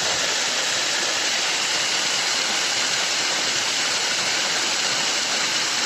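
Waterfall's falling water rushing steadily, an even unbroken noise.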